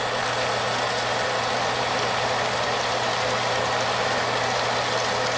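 Old electric well pump running steadily, a constant hum over a rushing noise, as it pulls muddy water from a newly jetted well. It sounds like it is dying and running down: all the pressure is gone.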